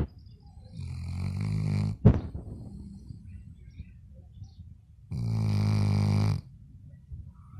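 Labrador snoring in its sleep: two long snores about four seconds apart, each a little over a second, with a short sharp noise just after the first.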